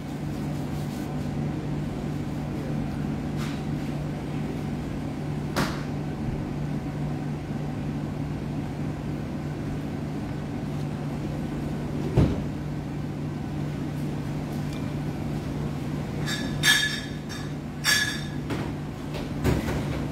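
Steady low mechanical hum of room machinery such as refrigeration or air conditioning, with a few single knocks and a short clatter of knocks near the end.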